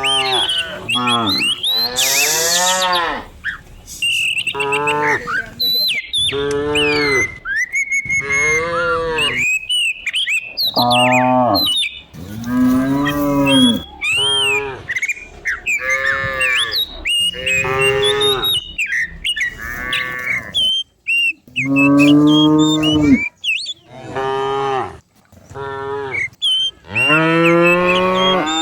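Herd of cattle mooing over and over, one long call after another, a new moo every second or two with some calls overlapping from several cows at once.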